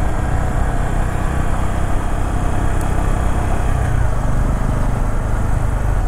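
Bajaj Pulsar N250's single-cylinder engine running steadily as the motorcycle cruises at about 30 km/h, heard from the rider's seat with a heavy low rumble of road and wind noise.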